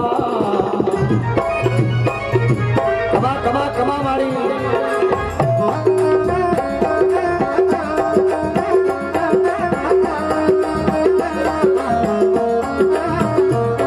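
Instrumental interlude of a Rajasthani devotional folk song: fast dholak drumming under a melody played on keyboard and harmonium, with no singing.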